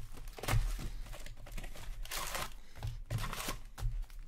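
Crinkling and rustling as an Upper Deck hockey hobby box is opened and its foil card packs are pulled out, with cardboard and wrappers rubbing in irregular bursts.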